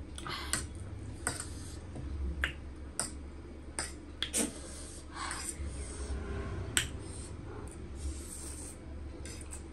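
Close-up eating sounds of spicy instant noodles: wet chewing with repeated sharp mouth clicks and lip smacks, a few short slurps of noodles, and the fork against the plate.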